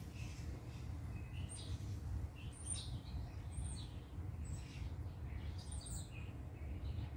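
Small birds chirping, short high calls about once a second, over a low steady rumble.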